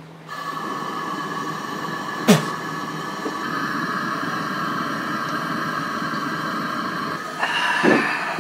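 Gas camp-stove burner lit with a match: it catches about a quarter of a second in, then runs with a steady hiss carrying a few steady tones. A single metal knock about two seconds in, as the frying pan is set on the grate.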